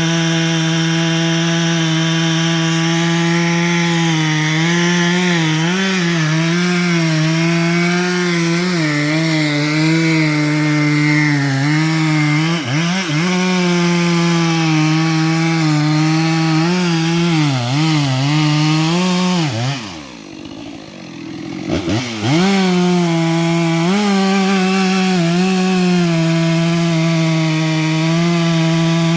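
Gas chainsaw cutting into a large tree trunk, its engine note dipping again and again as the chain bogs in the wood. About twenty seconds in the saw drops back for a couple of seconds, then revs up again and runs steadily at full throttle.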